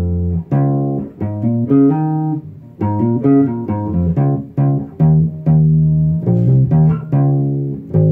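Squier Jazz Bass played unaccompanied: a plucked riff moving between D sharp and C sharp, with quick hammer-ons on the D sharp, in a steady rhythm with a few longer held notes. A note is left ringing near the end.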